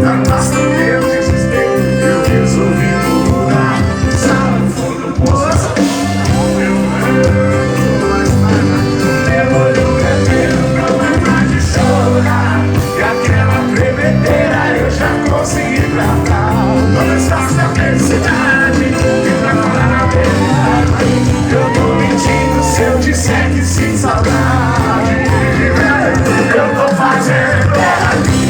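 Loud rock music with a singing voice over a steady beat.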